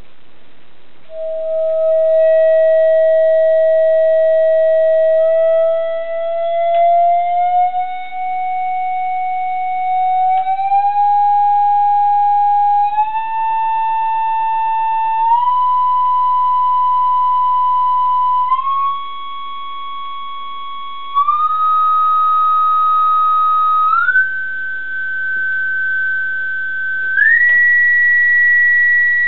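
Pure electronic test tone from a signal generator, played through a TV speaker, beginning about a second in and climbing in pitch in small steps every couple of seconds as the generator is swept upward, with faint higher overtones above it.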